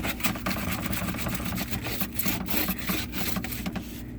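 Water-wetted Norwex EnviroSponge scrubbing back and forth on a refrigerator surface, working loose a stuck-on spill in quick, repeated rubbing strokes.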